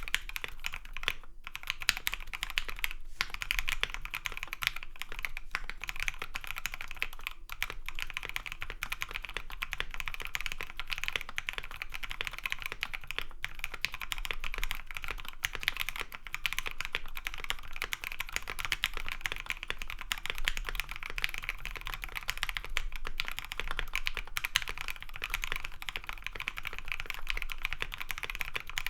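Steady, fast typing on a mechanical keyboard with a POM case and POM plate, lubed C³Equalz Tangerine 62g linear switches and MT3 keycaps: a dense, continuous run of keystrokes without pause.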